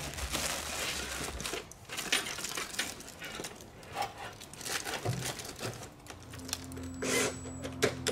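Irregular clattering, rustling and clinking as flexible aluminium duct and its clamp are handled and fitted to an exhaust blower. About six seconds in, a cordless drill starts a steady hum as it drives the duct clamp tight.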